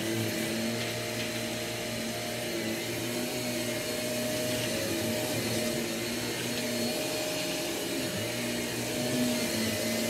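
Shark Navigator upright vacuum cleaner running steadily, a continuous motor hum over a suction hiss, while it is pushed back and forth across carpet.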